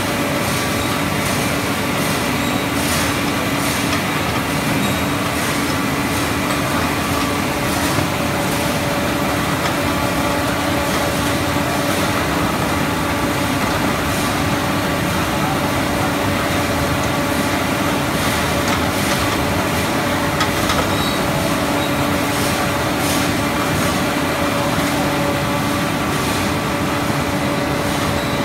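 Mandarin peeling line running: a steady, loud mechanical drone with a constant hum and light clatter here and there, from the steam-softening and roller peeling machinery that strips the softened rinds off the fruit.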